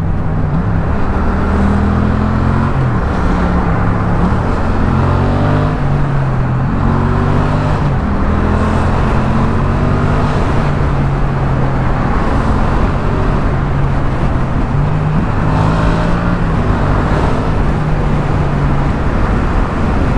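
Yamaha XSR700's 689 cc parallel-twin engine through an Akrapovic carbon full-system exhaust, under way: its pitch climbs several times as the throttle opens and steps at gear changes, running steadier in between.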